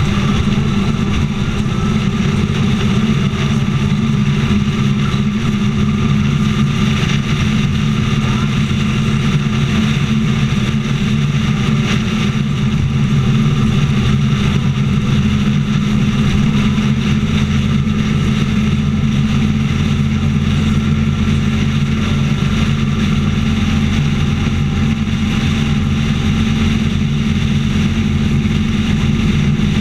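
Motorcycle engine running steadily at highway cruising speed, with a constant rush of road and wind noise.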